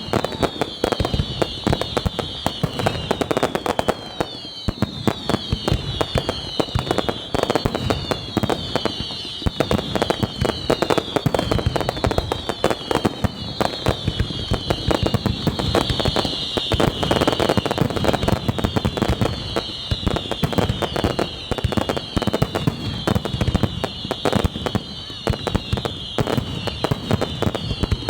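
Pirotecnia Ricasa aerial fireworks in a dense, unbroken barrage of rapid bangs and crackle, with many high whistles falling in pitch over and over.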